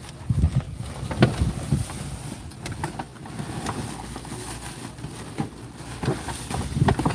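Flattened cardboard boxes being shoved and dragged around inside a metal dumpster, with irregular scrapes and knocks, over wind on the microphone.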